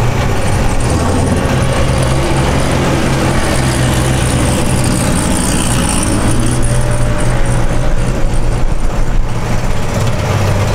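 Steady low engine hum with rolling and wind noise, heard from a moving golf cart.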